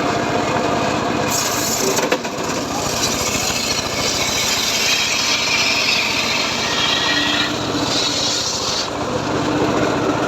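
Engine-driven homemade circular saw cutting through teak wood: the blade's high cutting noise starts about a second in and stops near the end, over the engine running steadily throughout.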